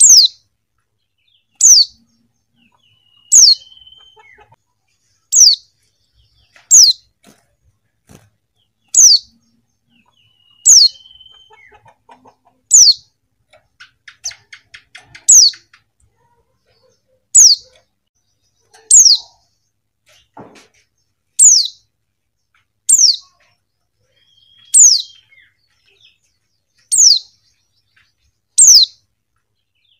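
Female white-eye (pleci) calling: a short, high, down-slurred note repeated about every two seconds. Now and then it gives a lower, short buzzy note, and about halfway through there is a quick run of faint rapid ticks.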